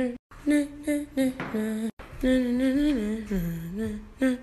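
A person humming a tune: short held notes that slide up and down between pitches, cut off abruptly twice.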